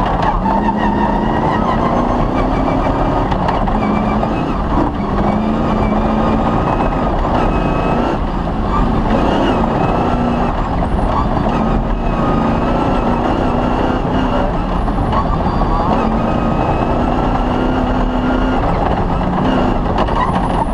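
Cross-country rally car's engine running hard on a rough stage, its pitch rising and falling in steps with throttle and gear changes, over a constant rumble with knocks from the track.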